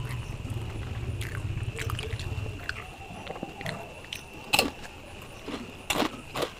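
Close-miked eating sounds as a man eats rice with his hand: wet chewing and mouth clicks with scattered sharp clicks, the loudest about four and a half seconds in.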